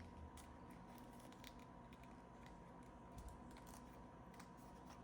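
Near silence with faint, scattered clicks and rustles of hands handling paper cash envelopes and small items, over a faint steady electrical tone.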